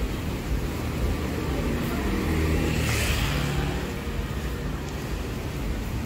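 A motor vehicle's engine passing by on the road, swelling about two seconds in and then fading, over a steady low rumble of wind on the microphone.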